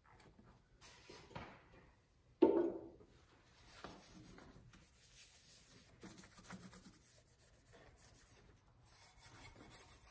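Cloth shop rag rubbed in irregular strokes across the machined deck of a Slant Six engine block, wiping it clean with acetone before the cylinder head goes on. A single sharp knock about two and a half seconds in is the loudest sound.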